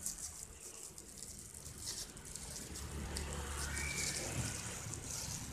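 Thin plastic bag crinkling and rustling in the hand as its knotted top is gripped and worked.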